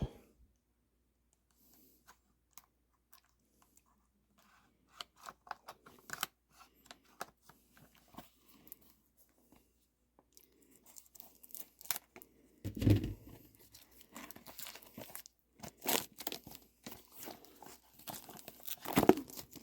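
Plastic wrapping being torn and crinkled open by hand in irregular crackles, with a louder thump about 13 seconds in.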